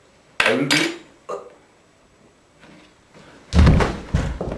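A person's short cry about half a second in, then heavy thuds near the end, like a body falling to the floor.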